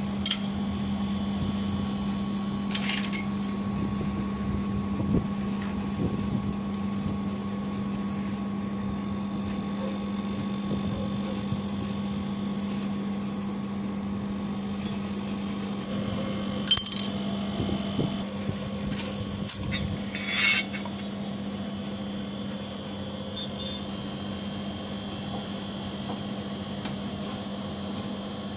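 Metal tools and fittings clinking and knocking now and then over a steady low hum, with a small cluster of sharper clinks about two-thirds of the way through.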